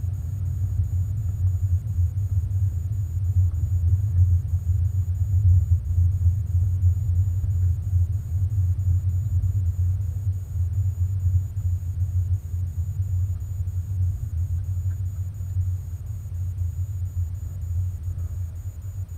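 Low, steady rumble inside the cabin of a 1998 Hyundai Coupé 1.6 16v on the move, growing somewhat quieter over the last few seconds.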